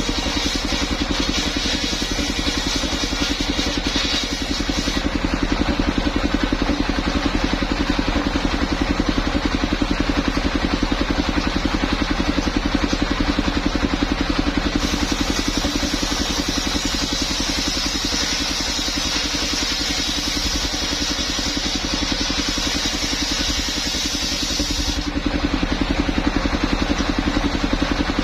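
Engine of a mobile circular sawmill running steadily. A higher hissing layer on top comes and goes: it is there for the first few seconds and again from about 15 to 25 s.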